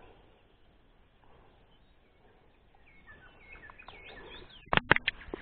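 Songbirds chirping and singing faintly, the song getting busier in the second half. Near the end comes a quick run of four or five sharp knocks, the loudest sound.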